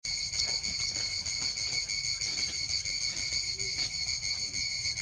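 Steady, high-pitched chorus of insects shrilling continuously in the forest.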